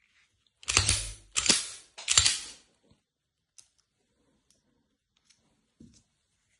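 Three sharp metallic clacks about two-thirds of a second apart, each ringing briefly, from a pistol and its magnetic red-dot mount being handled; a few faint taps follow.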